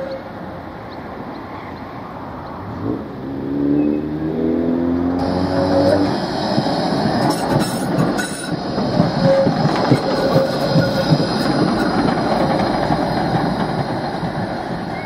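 A Tatra articulated tram moving off, with a whine from its motors that rises gradually in pitch. About five seconds in, a low-floor articulated tram passes close and rounds a curve, its wheels rumbling and clicking over the rails with some squeal.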